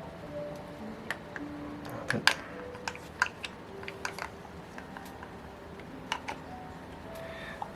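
Scattered light clicks and taps of small metal glow-engine parts being handled and turned by hand, with a couple of sharper clicks about two seconds in.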